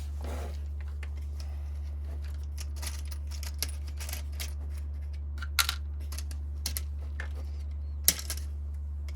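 Small crimp ring terminals clicking and clinking as they are picked through in a parts box, with a few sharper clicks, the loudest near the end, over a steady low hum.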